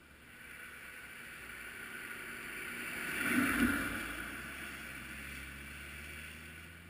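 A vehicle passing close by: its tyre and engine noise swells to a peak about three and a half seconds in, then fades away.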